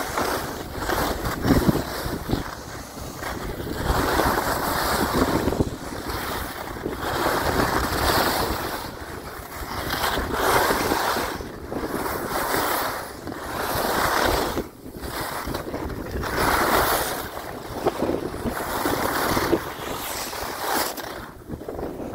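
Skis scraping and hissing over packed snow during a downhill run, swelling with each turn about every one to two seconds, under wind rushing on the microphone.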